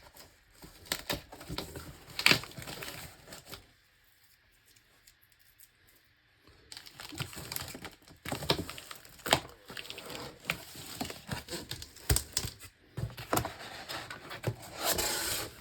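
Unboxing sounds: packing material crinkling and tearing, with scattered knocks and rustles from a cardboard box. The handling stops for a couple of seconds about four seconds in, then picks up again.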